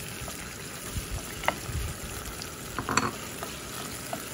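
Diced sausage sizzling as it fries in hot oil with onion in a saucepan, with a steady hiss and a spoon knocking against the pan a few times as it stirs.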